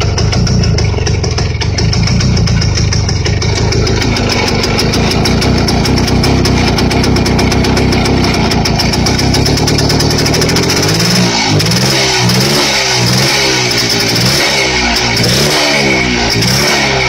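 Two-stroke motorcycle engine running steadily, then from about two-thirds of the way in it is revved up and down repeatedly, roughly once every second.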